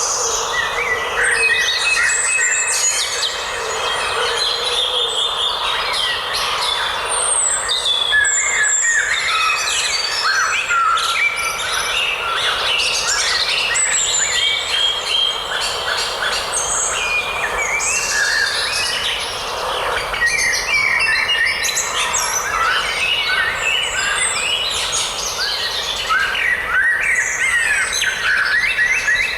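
A dense chorus of many songbirds chirping and trilling over one another without a break, over a steady hiss.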